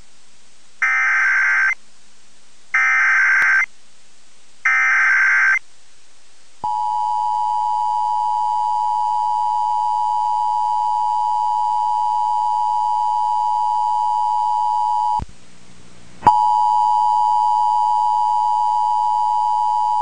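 Emergency Alert System tornado warning opening: three one-second bursts of digital SAME header data tones about a second apart, then the steady two-tone EAS attention signal, which drops out for about a second and then resumes.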